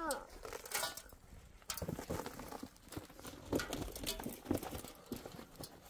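Irregular knocks and clicks, bunched in short clusters, with a falling pitched call trailing off at the very start.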